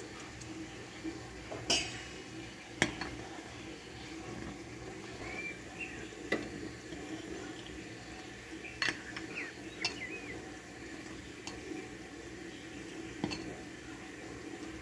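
A ladle clinking against a glass casserole dish as thick pearl millet porridge is stirred and ladled up and poured back, with several sharp clinks spread over a steady low background noise.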